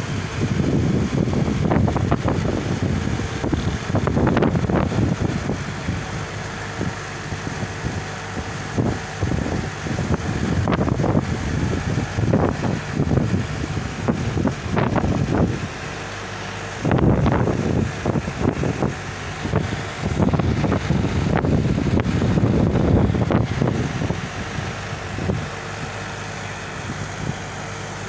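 Strong gusty wind buffeting the microphone: a deep rumbling rush that swells and eases in irregular gusts every few seconds, dropping to a lull for a few seconds near the end.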